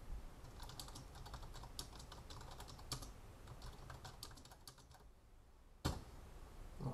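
Typing on a computer keyboard: a quick run of key clicks for about four seconds, then a pause and one louder single key stroke, the Enter key running the typed command.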